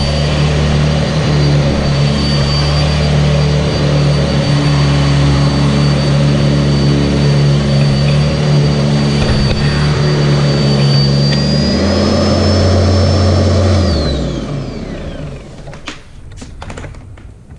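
Sanitaire SC679j upright vacuum cleaner's motor running steadily with a high whine over a low hum. Its pitch shifts up a few seconds before the end, then the motor is switched off and spins down with a falling whine, followed by a few clicks and knocks.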